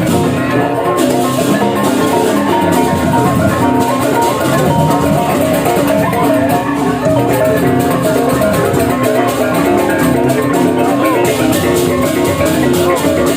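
Balinese gamelan music: bronze metallophones ringing in fast, dense patterns over steady drumming.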